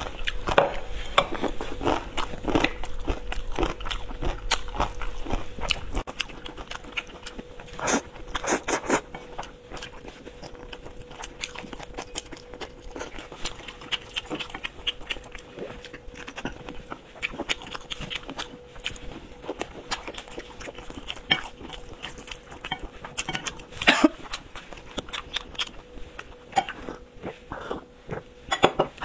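A person chewing and biting food close to the microphone, with irregular clicks and taps of chopsticks against plates and bowls. A faint steady hum runs underneath.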